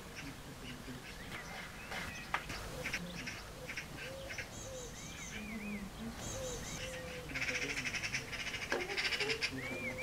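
Eurasian magpies giving harsh, rapid chattering rattles, loudest in the second half. Other birds' whistled notes sound in the background.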